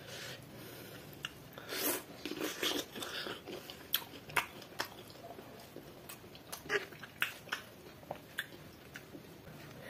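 Close-miked eating sounds: chewing chicken dum biryani, with irregular wet smacks and sharp clicks, and sticky squishes from fingers tearing the chicken apart. The sounds are busiest a couple of seconds in.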